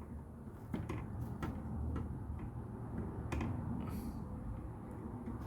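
LEGO pieces being handled and pressed together: several sharp, irregular plastic clicks and taps over a low rumble of handling noise.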